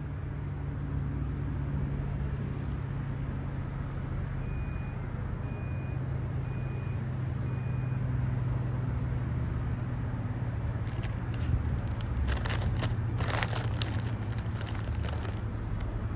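A Sun Chips bag crinkling and crackling in the hand for a few seconds in the second half, over a steady low mechanical hum. Four short high beeps about a second apart come in the middle.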